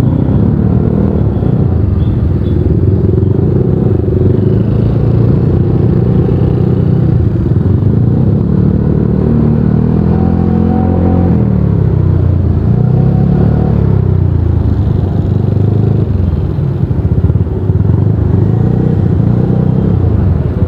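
Motorcycle engine running up close in stop-and-go traffic. Its pitch rises and falls a few times as the throttle is opened and eased, most clearly about halfway through.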